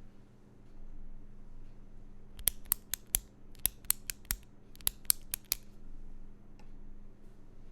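Retractable Pilot G-2 Pro gel pen clicked about a dozen times over some three seconds, sharp clicks in quick pairs and groups, as a loudness reference for the keyboard that follows.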